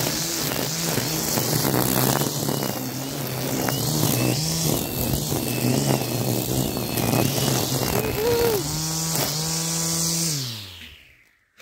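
Husqvarna 520iRX cordless trimmer's electric motor running forward with a freshly fitted line trimmer head, the line whipping through grass. Its whine steps up and down in pitch as the trigger is worked, dips once about eight seconds in, then winds down to a stop near the end.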